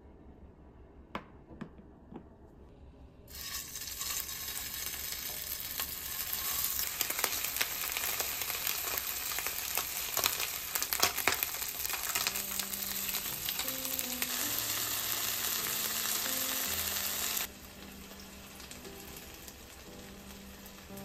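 A few light clicks, then about three seconds in food starts sizzling in hot sesame oil in a frying pan, with crackling pops. The sizzle cuts off sharply a few seconds before the end, leaving soft background music.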